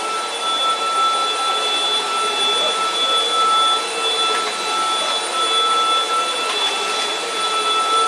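Two cordless stick vacuum cleaners, a Dibea F20 Max and a Prosenic, running together at maximum power over carpet. Their motors make a steady high whine over the rush of air.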